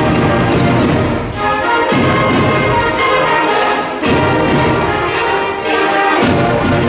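Large combined school concert band playing loudly, with brass and woodwinds over a steady drum beat.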